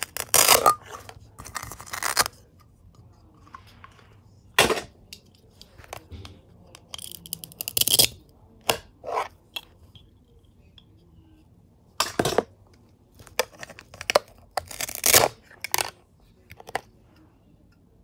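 Velcro on a plastic toy fruit being pulled apart: several short rasping tears at irregular intervals, with light clicks and clacks of hard plastic toy pieces on a plastic cutting board.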